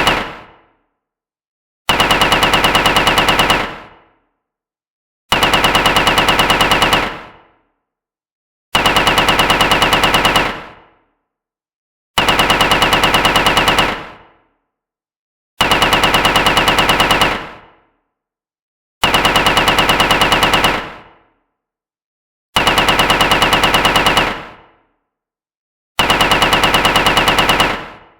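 Automatic gunfire sound effect: the same burst of rapid shots, about a second and a half long, repeated about every three and a half seconds, each burst fading quickly into silence before the next.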